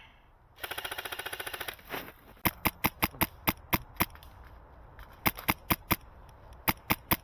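Wolverine MTW HPA airsoft rifle firing. A fast, even burst comes about a second in, then strings of sharp single shots, about five a second, in three groups.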